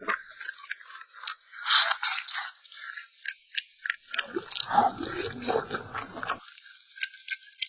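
A person chewing and biting food close to the microphone, with many short wet clicking mouth sounds and a denser stretch of chewing about halfway through.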